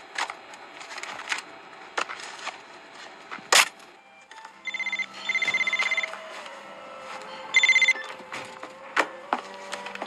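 A telephone ringing: two bursts of a fast trilling ring, the second shorter, after a few seconds of scattered sharp clicks and knocks.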